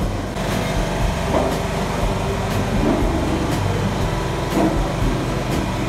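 Restaurant dining-room background noise: a steady low rumble with faint knocks about once a second.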